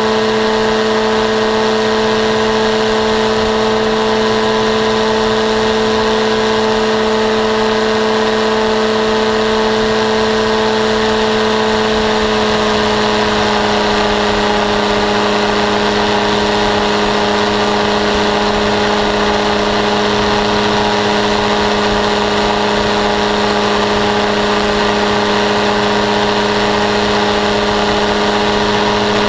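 Paramotor trike engine and propeller running steadily in flight, a loud constant drone whose pitch drops slightly about twelve seconds in.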